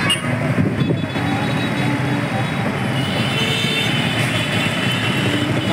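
Road traffic: a steady mix of passing buses, rickshaws and motorcycles. A faint high tone joins about three seconds in.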